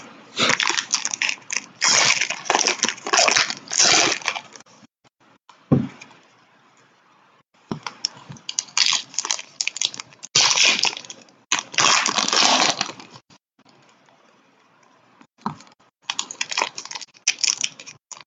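Trading-card pack wrappers being handled and torn open: repeated bursts of crinkling and crackling, with a couple of soft thumps on the table in between.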